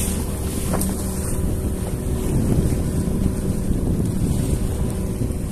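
Small fishing boat's engine running steadily, a constant low hum, with wind buffeting the microphone.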